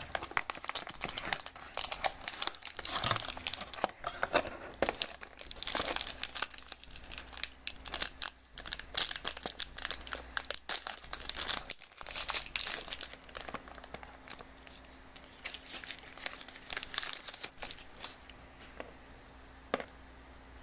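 Plastic wrapping crinkling and tearing as a sealed trading-card pack is unwrapped by hand. The crackling is densest through the first dozen seconds and thins out toward the end.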